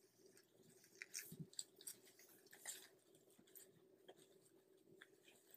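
Faint, soft, irregular clicks, rustles and mouthing sounds of three-week-old golden retriever puppies scrabbling and nibbling at each other on a blanket and puppy pad, over a faint steady hum.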